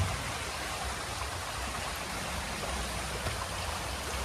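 Steady rushing of a swollen, muddy creek carrying typhoon floodwater.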